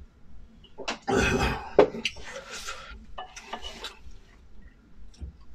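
Utensil scraping and clinking against a bowl as rice and dry-fried green beans are stirred together: a loud scrape about a second in, a sharp clink just after, then several shorter scrapes.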